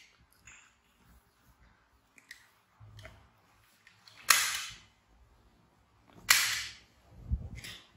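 Two loud, sharp cracks about two seconds apart, each trailing off in about half a second, with a softer one near the end and small ticks and rustles between.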